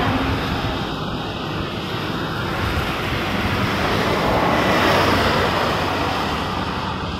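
Traffic on a rain-wet road: a steady hiss of tyres on wet asphalt, swelling about four to five seconds in as a vehicle passes, then easing.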